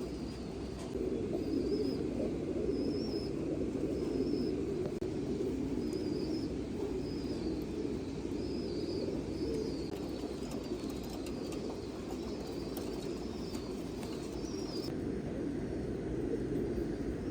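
Flock of domestic pigeons cooing together in a steady low murmur, with a short high chirp repeating about once a second that stops shortly before the end.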